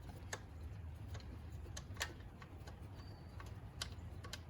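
Sparse, irregular clicks and ticks of a hand socket ratchet and metal tools working on the engine's bolts.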